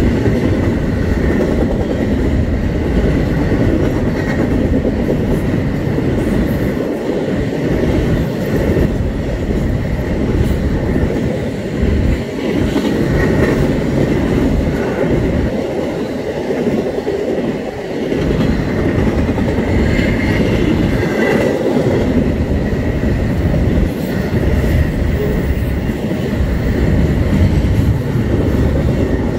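Norfolk Southern double-stack intermodal train rolling past at speed: a loud, steady rumble and clatter of the car wheels on the rails.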